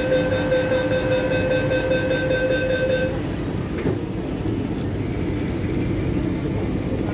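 MTR Q-Train door-closing warning: a pulsing beeping tone for about three seconds, then a sharp knock as the doors shut about four seconds in, over the steady hum of the train.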